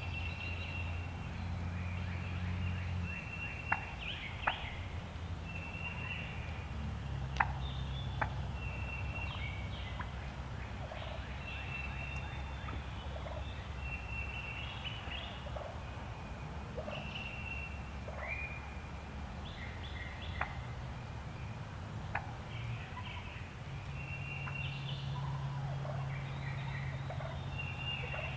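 Wild turkeys calling, over many short high bird notes and a few sharp clicks.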